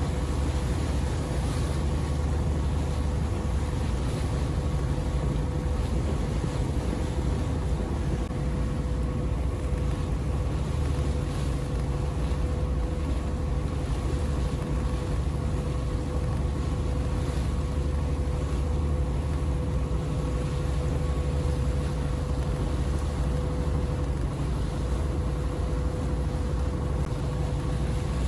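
Boat engine running steadily: a constant low drone with a steady hum, not changing in pitch or level.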